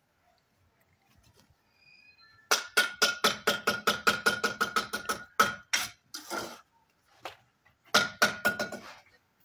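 Steel mason's trowel striking ceramic bricks and mortar as bricks are laid, giving a fast run of sharp, ringing clinks at about five a second. A shorter run of the same clinks follows near the end.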